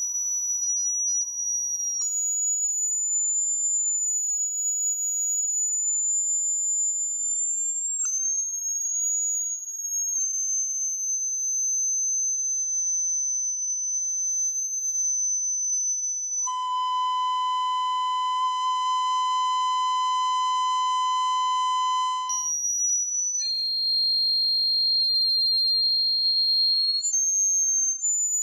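Steady, high-pitched electronic tones, thin and whistle-like, that hold and then step to a new pitch every few seconds. About two-thirds of the way in, a lower, louder tone with several higher tones over it sounds for about six seconds and cuts off suddenly, and a single high tone carries on.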